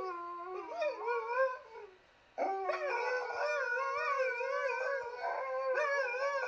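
Husky-type dogs howling in long, wavering howls: one howls at first, there is a brief pause about two seconds in, then two howl together, their voices overlapping.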